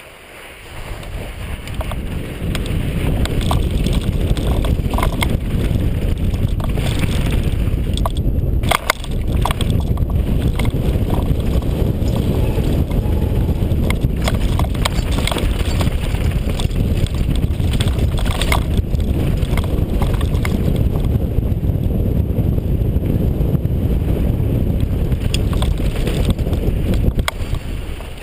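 Wind buffeting a GoPro camera's microphone as a Rocky Mountain mountain bike speeds downhill on a dusty dirt trail, mixed with the rumble of knobby tyres on loose dirt. The noise builds over the first couple of seconds as the bike picks up speed, and sharp clatters from the bike over bumps come now and then.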